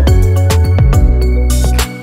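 Background music with a heavy bass and a steady beat.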